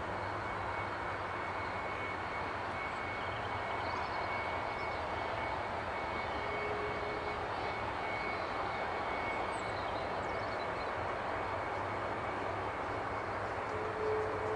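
Jet airliner engine running steadily: a constant rushing noise with a thin high whine over it. A lower hum comes in briefly around the middle and again near the end.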